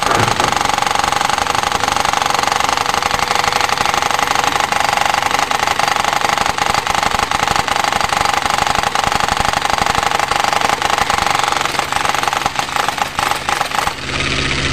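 Handheld demolition hammer (jackhammer) chiseling very hard concrete, a steady rapid hammering with a high whine. It breaks into short bursts about twelve seconds in and stops near the end, leaving a steady low engine hum.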